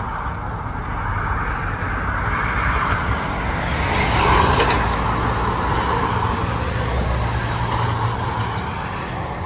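Road traffic on a busy road, cars driving past on green, with one vehicle passing closest and loudest about four seconds in.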